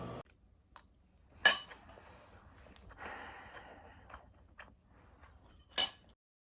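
Two sharp clinks about four seconds apart, with faint handling noise and small ticks between.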